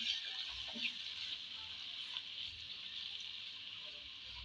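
Chopped onions sizzling in hot oil in a non-stick wok: a steady high hiss. A silicone spatula stirs them, with a few soft touches early on.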